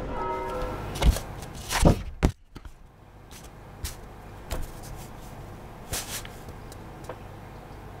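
Music fading out, then two loud thuds about a second apart, then a quiet room with a few faint soft taps.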